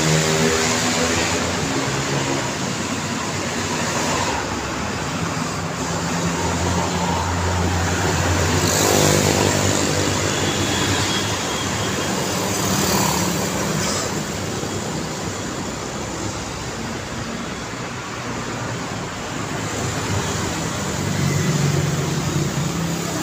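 Road traffic: cars and motorbikes passing close by on a city street, engines and tyres swelling and fading as each goes by, loudest about nine seconds in and again near the end.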